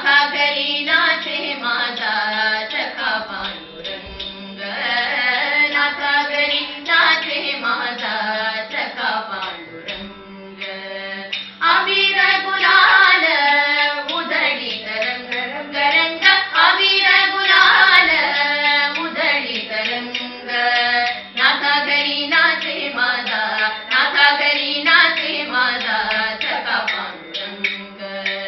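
Several women singing a devotional song together over a steady, unchanging drone, in long melodic phrases with short breaks between them.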